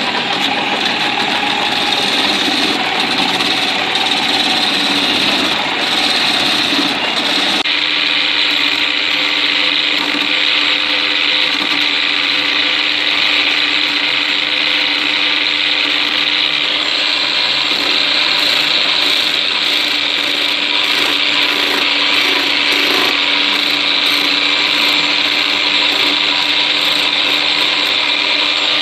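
Electric drill driving an improvised wood-turning lathe, running steadily while a flat steel scraper cuts into the spinning wooden leg. The sound changes abruptly about seven and a half seconds in, then runs steadily again.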